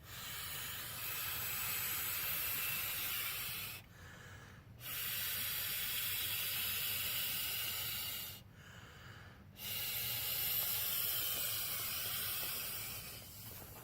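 Someone blowing up an inflatable camping pillow by mouth: three long, steady breaths of air rushing into the valve, each about three and a half seconds, with a short pause between breaths.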